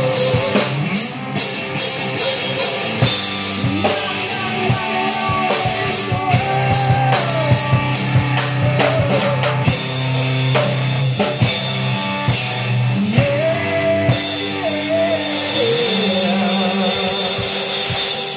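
Rock band playing live: drum kit, electric guitar and a singer on a microphone.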